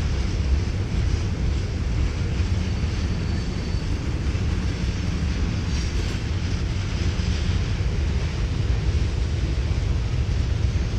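Norfolk Southern freight train rolling past with a steady low rumble.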